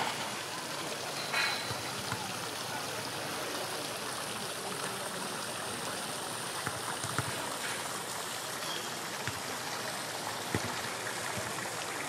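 A steady rushing noise like running water, with a few faint clicks and a brief high chirp about a second and a half in.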